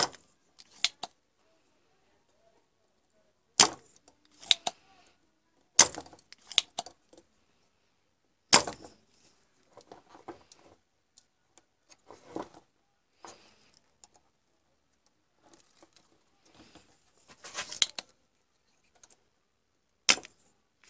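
Spring-loaded desoldering pump (solder sucker) firing against solder joints: a handful of sharp snaps a few seconds apart as the plunger is released, with quieter clicks and handling rattles between them as it is cocked again.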